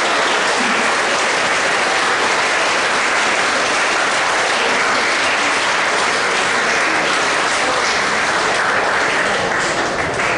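A large audience of students clapping, a steady, dense round of applause that eases off near the end.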